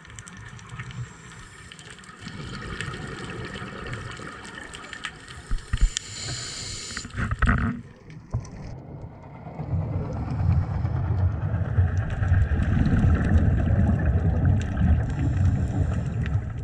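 Underwater sound picked up by a dive camera: a steady crackle of many sharp clicks, then from about halfway a louder low rumble of moving water and bubbles.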